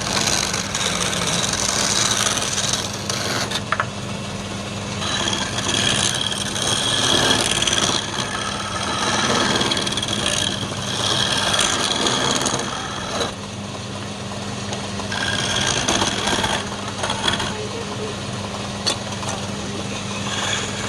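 Wood lathe running with a steady motor hum, while a turning tool cuts the spinning wood in uneven spells of hissing scrape that swell and fade.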